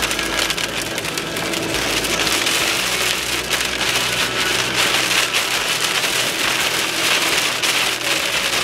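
Rain pelting a moving vehicle's roof and windshield, a dense steady patter over the low hum of the car on the road.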